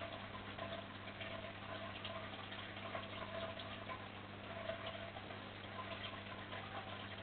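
Aquarium filter running: a steady low hum under a faint, irregular crackle.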